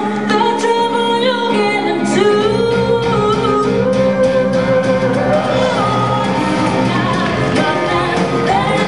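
A song with singing and a steady beat, played over the hall's sound system.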